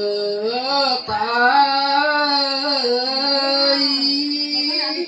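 A woman singing lượn, a Tày folk song, in long drawn-out held notes with a wavering pitch.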